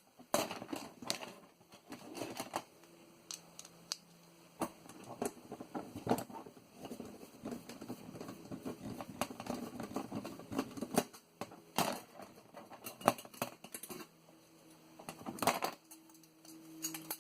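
Irregular clicks, taps and rattles of small metal and plastic parts being handled and pried while a floppy disk drive is taken apart by hand.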